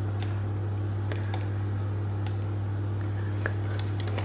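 Silicone spatula spreading and scraping brownie batter in a parchment-lined tin: a few faint soft ticks and scrapes over a steady low hum.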